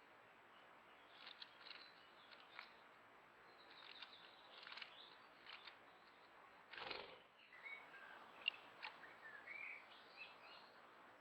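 Faint, scattered chirps and calls of small songbirds over a quiet background hiss, with a brief rushing sound about seven seconds in and a single sharp tick about a second later.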